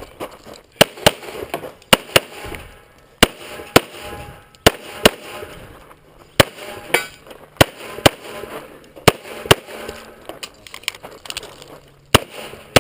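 9mm EAA/Tanfoglio Witness Elite Match pistol firing a USPSA stage, shots mostly in quick pairs about a third of a second apart, with short pauses between pairs and a longer pause near the end before a last pair.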